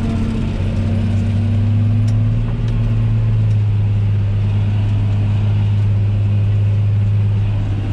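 John Deere 8100 tractor's six-cylinder diesel engine running steadily under load, heard from inside the cab, as it pulls a Väderstad Carrier disc cultivator set deep in the soil.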